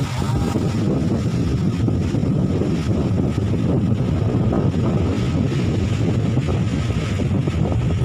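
Steady low rumble of wind buffeting the microphone, with a vehicle's engine running underneath.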